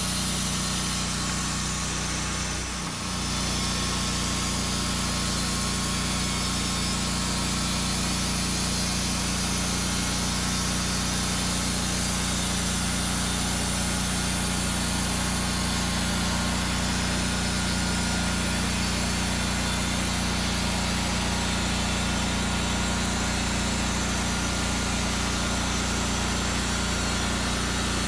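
Small engine of a Norwood Lumbermate Mark IV bandsaw mill running steadily, with a brief dip about three seconds in.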